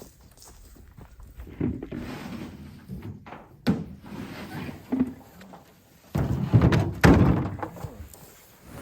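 A few dull thunks and knocks, one sharp, then a louder run of knocking and rustling about six seconds in.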